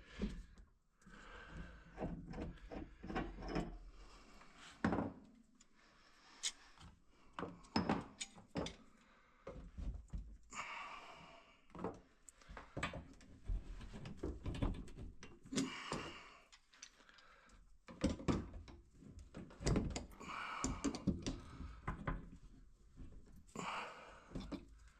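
Scattered thunks, knocks and clatters of doors and bins being opened and items being handled while hunting for pipe caps among a plumber's stock of fittings.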